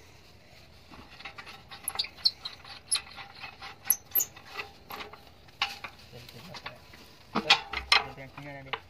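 Small metal clicks and taps from hands working a rusty pipe flange and bolts against an irrigation pump's flange, scattered irregularly, with a few brief high chirps midway and a louder cluster of clatter and a short voice near the end.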